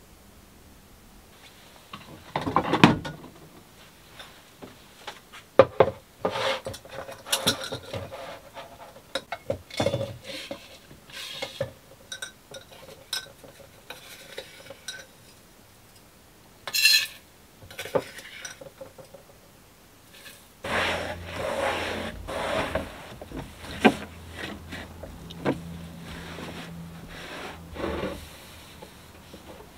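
Kitchenware clinking and knocking as containers and utensils are handled at a boat's galley counter. About two-thirds of the way in this gives way to a cloth rubbing over a plastic cooler lid, with a low steady hum underneath.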